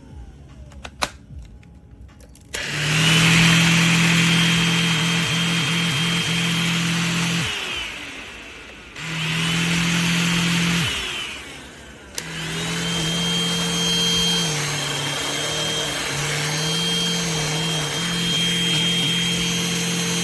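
Powools H-116 cordless handheld vacuum switched on three times after a click, its motor spinning up to a steady whine, running a few seconds and winding down each time. In the last, longest run the pitch dips and recovers a few times as the load on the motor changes.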